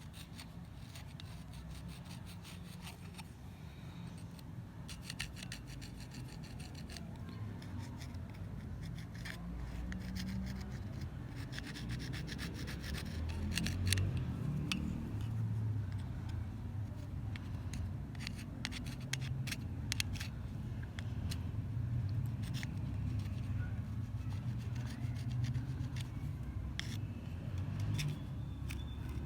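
Hand rubbing and scraping on a rusty pair of pliers, with many scattered small clicks and scratches over a low handling rumble, typical of rust removal by hand.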